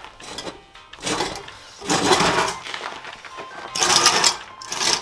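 A Nissan 350Z's rusty steel rear subframe being dragged across a concrete driveway, scraping and grinding in several separate pulls.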